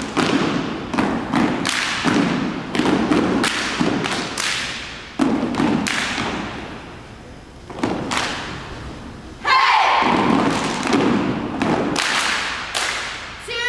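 A series of heavy, echoing thumps at irregular spacing, roughly one or two a second, each ringing on in a large hall. They thin out and fade in the middle, then return loud and sudden about nine and a half seconds in.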